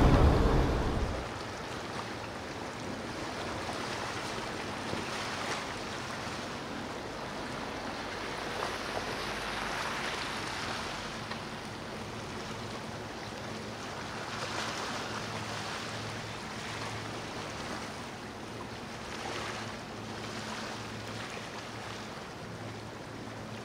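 A boat's engine and wake fade out within the first second. A steady rushing noise of wind and surf follows, swelling gently every few seconds.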